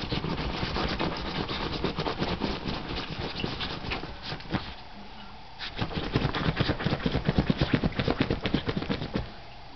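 Puppy pawing and rooting in bed covers: rapid scratching and rustling of fabric, pausing for about a second near the middle, loudest in the second half.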